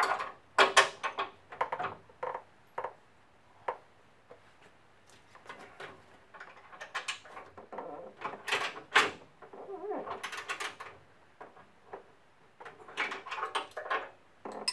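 A wrench and bolt hardware clicking and clinking at irregular intervals as a steel L-bracket is bolted onto a chrome truck bumper, some knocks ringing briefly.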